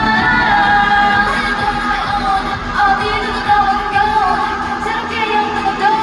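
K-pop girl group singing live over a pop backing track, with long held vocal notes.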